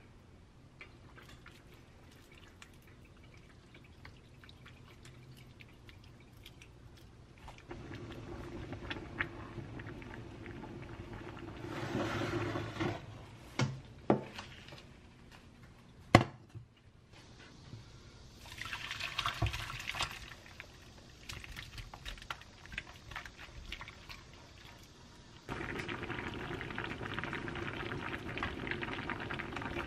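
Stew being cooked on an induction hob: liquid sloshing and pouring, a few sharp knocks of pot and utensils about halfway through, then the stew bubbling steadily in a frying pan from a few seconds before the end.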